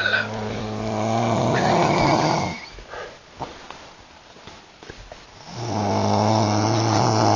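A woman snoring: two long, steady, low-pitched snores, the first at the start lasting about two and a half seconds, the second beginning about halfway through.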